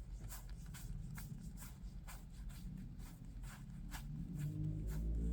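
Trading cards being handled and flipped through: soft quick clicks and slides, a few a second, over a low rumble. A low hum comes up near the end.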